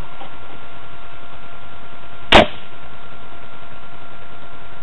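A single sharp shot from a small-calibre gun firing at a paper target, about two seconds in, over a steady background hiss.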